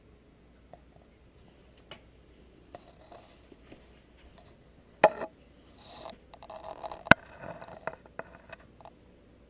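Handling noise: two sharp knocks about two seconds apart, with faint rustling between and after them, as the camera is moved across the countertop.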